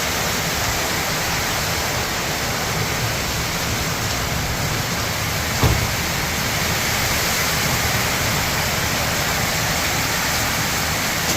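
Heavy rain pouring steadily in a cloudburst, with one short thump a little past halfway.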